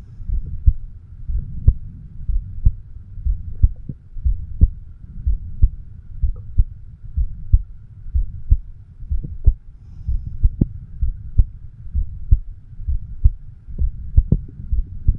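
A man's heartbeat heard through a homemade microphone stethoscope over the bicuspid (mitral) valve: a steady, regular lub-dub at about one beat a second, over a low steady hum.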